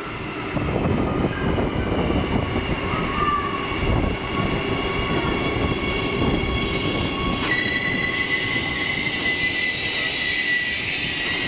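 Adelaide Metro 4000 Class electric multiple unit pulling into the platform: wheels rumbling on the rails with high whining and squealing tones over the top. A strong steady high whine comes in about two-thirds of the way through.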